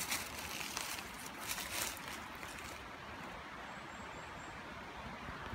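Steady rushing of a waterfall, with a few brief rustling noises in the first three seconds and some faint high chirps about four seconds in.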